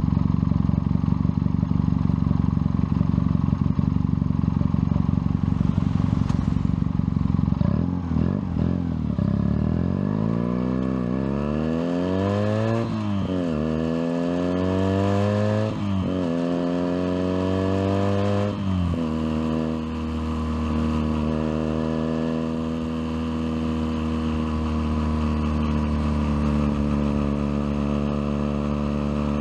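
Junak M11 Cafe's 125 cc single-cylinder engine idling steadily, then pulling away and climbing in pitch through several gear changes, each shift a sudden drop. About two-thirds of the way in it settles to a steady cruise.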